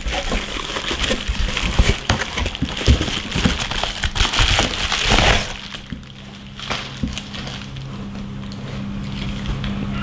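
Plastic bubble wrap crinkling and rustling as it is pulled away from the packed camber arms, stopping about halfway through. After that only a faint steady low hum remains.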